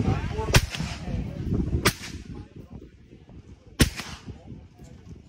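Three single shots from an AR-15 fitted with a Law Tactical ARIC internal bolt carrier, fired with its stock folded. Each shot is a sharp crack with a short ringing tail, spaced about one and a half to two seconds apart.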